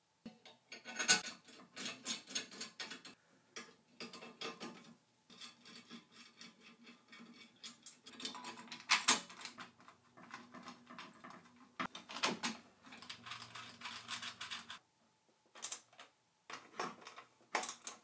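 Hand-assembly clatter: irregular clicks, rattles and knocks of a screwdriver and spanner working small screws and nuts, while a metal bracket and a halogen floodlight are handled and fitted onto an aluminium frame. The sharpest knocks come about a second in, about halfway through, and again a few seconds later.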